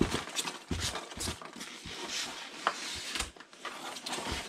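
Hands rummaging through foam packing peanuts in a cardboard box and lifting out a smaller cardboard box: irregular rustling and scraping with a few light knocks.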